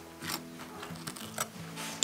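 Background music with held notes, over three short scrapes of a knife spreading onto crisp toasted bread, the last one the loudest.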